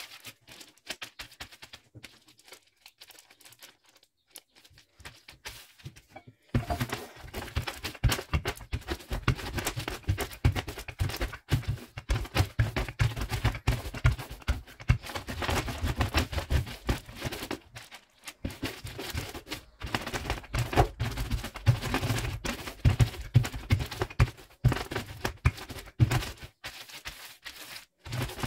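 Shelled pistachios in a plastic bag being crushed with a rolling pin: the plastic crinkles and the nut pieces crackle, with dull thuds under it. It begins about six seconds in, after a quieter stretch of light clicks.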